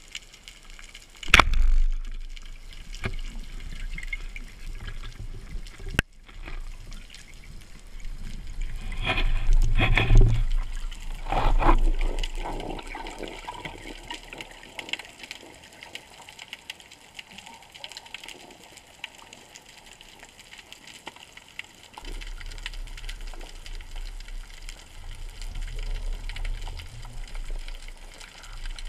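Underwater sound picked up through a diving camera's waterproof housing: a sharp loud crack about a second and a half in, a smaller click near six seconds, and a stretch of loud watery bursts from about nine to twelve seconds. A low rumble of water movement follows near the end.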